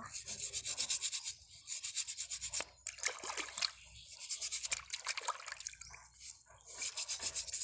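A stiff brush scrubbing mud off tuway clam shells in runs of rapid back-and-forth strokes, with short breaks between runs.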